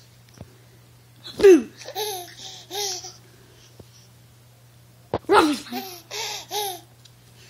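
A baby laughing in two short runs of about three chuckles each, each run opening with a sharp, loud sound that falls in pitch.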